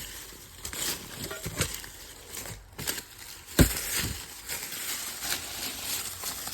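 Hands rummaging through debris and old glass: scattered clicks, scrapes and crackles, with one heavier knock about three and a half seconds in.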